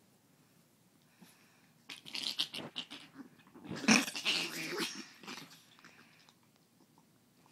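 Two small dogs, a Chihuahua and a rat terrier, play-fighting and growling. The growls start about two seconds in as a run of rough bursts, are loudest around four seconds, and die down by about five and a half seconds.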